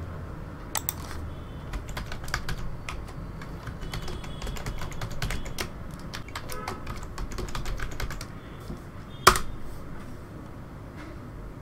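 Typing on a computer keyboard: a run of quick key clicks as a user name and password are entered, then one sharp, much louder click about nine seconds in.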